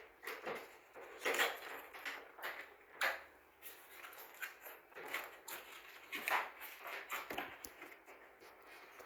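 Cardboard router box and its packaging being handled and opened: irregular rustling, scraping and clicks.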